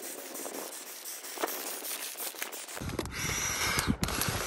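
Large clear plastic bag rustling and crinkling with small crackles. From about three seconds in the rustling is louder and fuller as the bag is handled.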